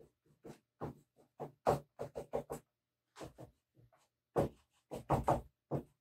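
Chalk being stroked and dabbed onto drawing paper: about fifteen short, scratchy strokes, irregularly spaced and separated by brief silences.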